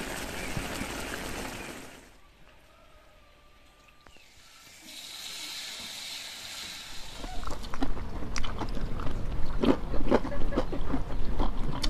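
Cooking and eating sounds in turn: a wok of sauce bubbling at first, then hot oil sizzling steadily as peyek batter fries, and from about seven seconds in, loud sharp crunching of crisp rempeyek crackers being bitten and chewed.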